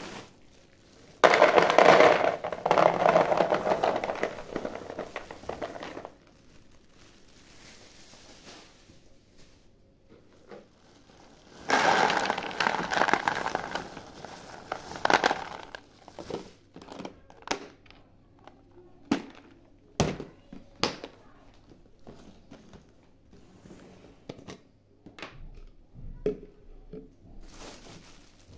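Shelled nuts poured from a plastic bag into a plastic storage tub: a dense rattling patter in two pours of a few seconds each. These are followed by scattered clicks and the crinkling of the plastic bag.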